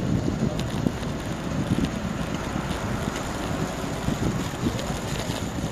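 Wind rushing over the microphone of a camera riding along on a moving road bicycle, a steady low rumble with faint scattered ticks.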